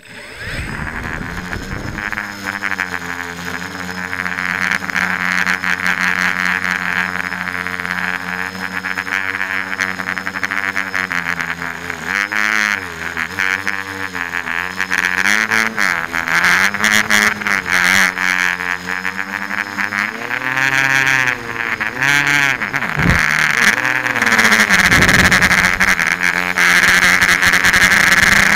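Tricopter's three electric motors and propellers, heard from the onboard camera, spinning up and running with a steady buzzing whine. About twelve seconds in the pitch starts rising and falling with the throttle as it flies, and it grows louder toward the end.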